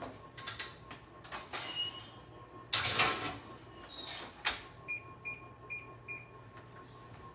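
Kitchen oven being loaded: knocks and a noisy metal clatter about three seconds in as the oven door opens and the rack of chicken tenders goes in. Then four short, evenly spaced electronic beeps from an appliance keypad as the 10-minute timer is set.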